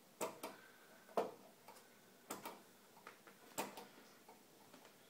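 Faint handling noise: sharp clicks and light knocks, often in pairs, about one pair a second.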